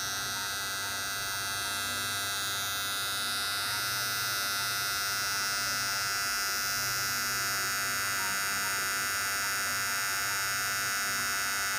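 Small brushed DC toy motor whining steadily as it drives a homemade toy car's wheels, a high electric buzz that holds at one pitch throughout.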